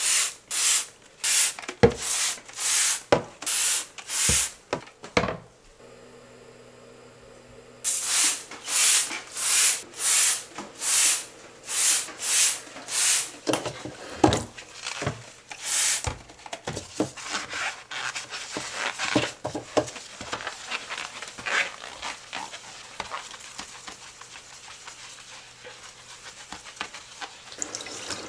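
Trigger spray bottle of cleaner squirted onto a washbasin over and over, about one and a half short hissing squirts a second, in two runs with a pause of a couple of seconds between. From about halfway the squirts give way to fainter, irregular scrubbing and rubbing as rubber-gloved hands brush the tap and wipe the basin.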